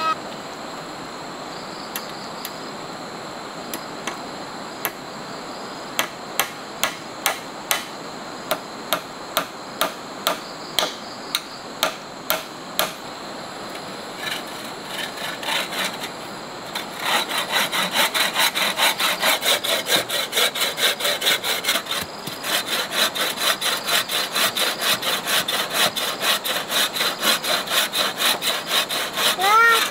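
Wooden knocks about twice a second, then a little past halfway a hand saw cutting through wood with quick, even back-and-forth strokes, about three a second.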